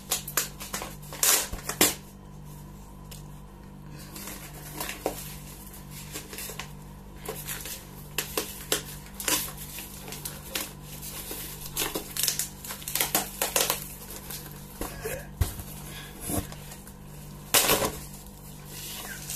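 A cardboard parcel box being handled and picked open by hand: irregular scrapes, knocks and crinkles as its plastic packing tape is pulled and torn, with the loudest rips about a second and a half in and again near the end.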